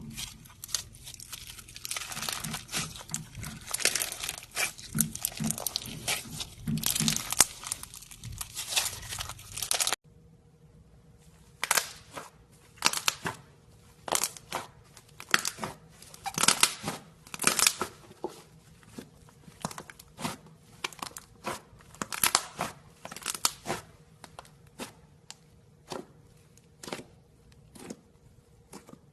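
Slime being squeezed and poked by hand, giving crackling, crunchy pops. About ten seconds in the sound cuts abruptly to a quieter stretch, where the crackles come in separate clusters.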